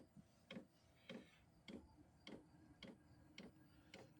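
Diesel air heater's fuel pump clicking steadily, about twice a second, as it pumps kerosene during start-up before the burner fires. A faint steady hum runs under the clicks from about a second in.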